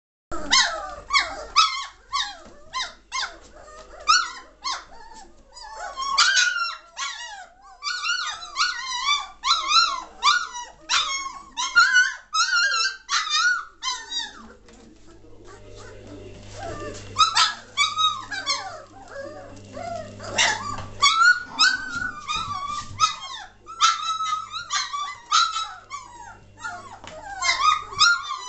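A litter of three-week-old German Shorthaired Pointer puppies whining and yelping: many short, high-pitched calls overlapping one another, with a brief lull about halfway through.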